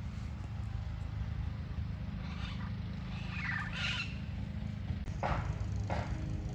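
Steady low rumble of street traffic, with a bird chirping faintly about two to four seconds in and a couple of short rustling noises near the end.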